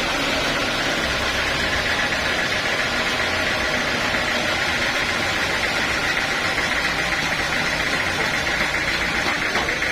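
Sawmill machinery running steadily: a continuous mechanical drone with a steady high whine over it.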